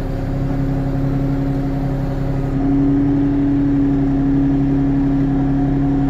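Kioti NX6010 tractor's diesel engine running steadily, picking up slightly about two and a half seconds in.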